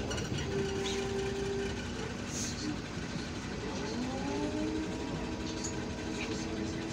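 Engine and drivetrain of a MAN Lion's Classic city bus heard from inside the cabin, running with a steady hum. About four seconds in, a whine rises in pitch and then holds steady as the bus moves off.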